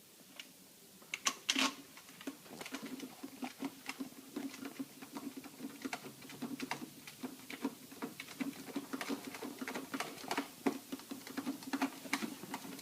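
Rapid, irregular clicking of a hand tool driving screws back in. It starts about a second in, with a few louder clicks soon after, then runs on as fast light ticking.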